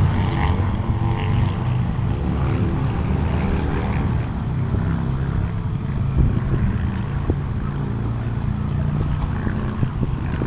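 Minivan engine running as the van pulls up and stops, under a heavy low rumble of wind on the microphone, with a few short knocks in the second half as its doors are opened.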